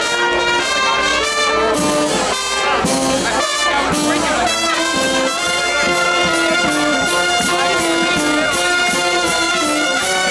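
Brass band playing, with trumpets and trombones carrying a tune in held notes. A steady percussion beat comes in about halfway through.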